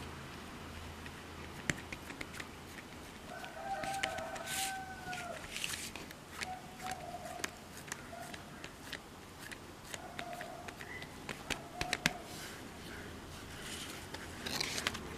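A rooster crows once, a long call about three seconds in that falls away at its end, followed by several shorter calls. Under it come soft taps and rustles of fingers pressing rice dough thin on a banana leaf.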